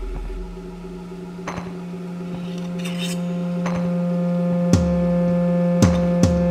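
Eerie sound-design score: held drone tones, a low one entering near the start and a higher one joining, with scattered metallic clinks and a few quick falling swoops near the end.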